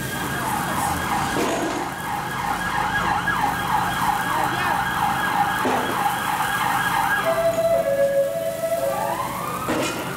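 Emergency vehicle siren on the street, wailing high, then switching to a rapid up-and-down yelp for several seconds, with a fresh rising wail near the end.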